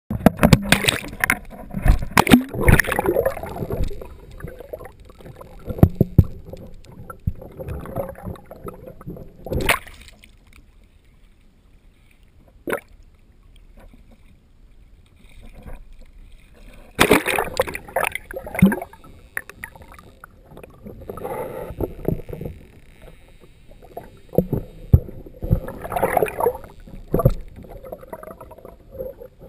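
Sea water splashing and gurgling around a GoPro in its waterproof housing as it is dipped in and out of the water on a pole, in irregular bursts with a quieter stretch in the middle, and a few sharp knocks against the housing.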